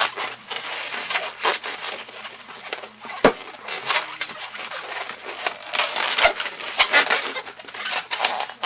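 A latex 260 modelling balloon being twisted and handled: continuous squeaky, crackling rubbing of the latex, with a sharper snap about three seconds in.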